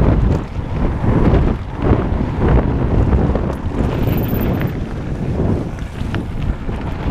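Heavy wind buffeting a helmet-mounted action camera's microphone on a fast mountain-bike descent, surging as speed changes, with tyre rumble and occasional knocks and rattles from the bike over a gravel trail.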